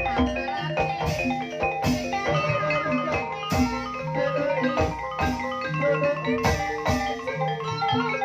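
Javanese gending music in the Banyumas ebeg style: interlocking mallet-struck keyed instruments play repeating melodic patterns over drum strokes, with a wavering melody line in the middle.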